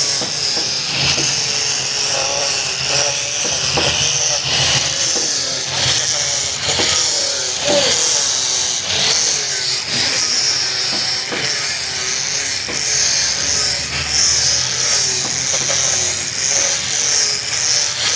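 Power tool running steadily on wood, with a constant high whine, a low hum and irregular scraping knocks as it works the surface.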